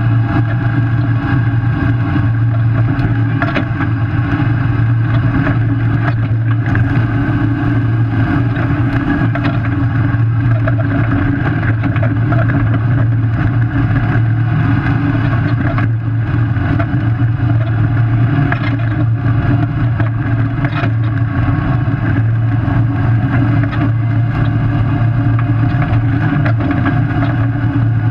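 Solid-axle Toyota 4Runner driving fast down a gravel road in four-wheel drive, heard from under the chassis: a steady low drone of tyres, drivetrain and wind, with a few faint ticks.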